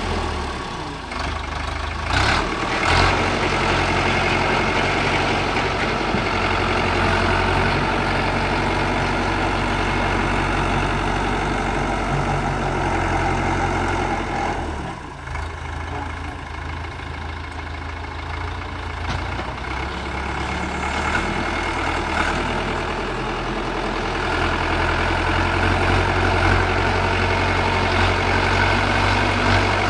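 Diesel engine of a YTO 4x4 tractor running as its front dozer blade pushes earth and rocks, with a couple of sharp knocks about two seconds in. The engine drops off about halfway through, then works harder again and is louder near the end.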